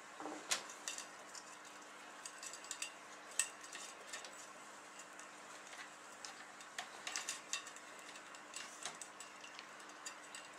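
Faint scattered clicks and light taps of an LED strip and small tools being handled on a workbench, over a steady low hum.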